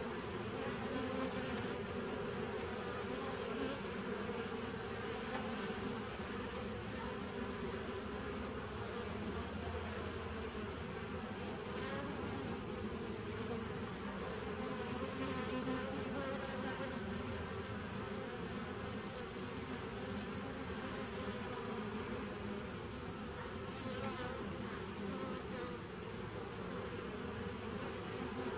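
Honeybees buzzing steadily as they fly in and out around the entrance of a nuc hive, a continuous hum of many wings.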